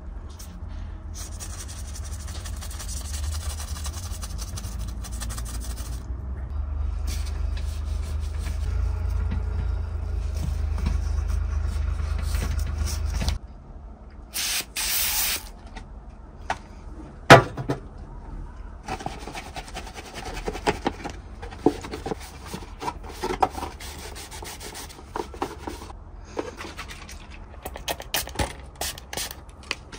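Detailing brush scrubbing soap foam over a plastic RC car chassis: a steady rubbing that grows a little louder, then stops abruptly about halfway through. After that come quieter rustles and knocks of hands handling a plastic car body shell, with a short hiss and one sharp click.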